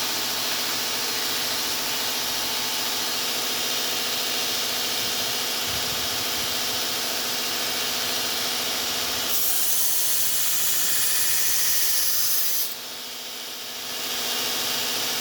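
Steady machine noise: a motor running with a strong hiss. The hiss brightens about nine seconds in, dips for about a second near the end, and then returns.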